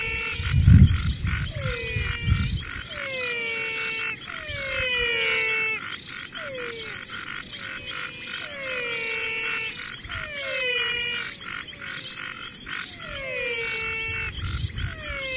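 Soundtrack of repeating falling whistle-like calls, about one a second, over a steady high hiss, with low rumbling thuds about a second in and again near the end.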